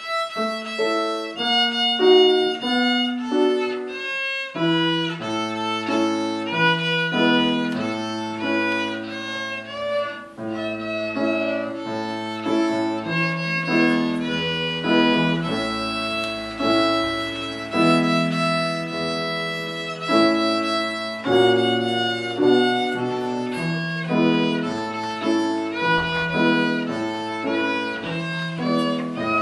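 A violin played by a young student, a melody of bowed notes moving from note to note. Lower, longer-held notes sound underneath. The playing begins right at the start.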